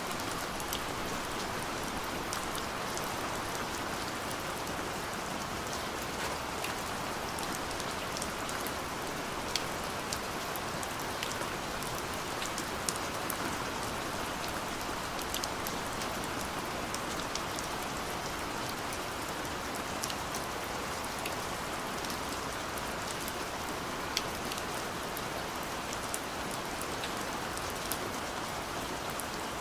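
Steady rainfall, with a constant hiss and scattered sharp drops striking a surface.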